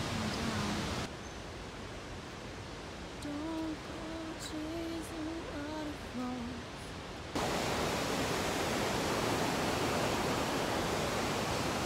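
Rushing water of Shell Falls and its creek, a steady noise that jumps much louder about seven seconds in. In the quieter stretch before that, a person's voice is faintly heard in short held notes.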